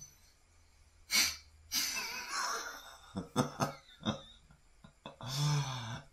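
A man laughing: several short, breathy bursts of laughter, then a longer laugh with a clear voice near the end.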